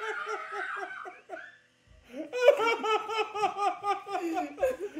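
High-pitched laughter in quick repeated bursts. It breaks off for a moment about one and a half seconds in, then picks up again.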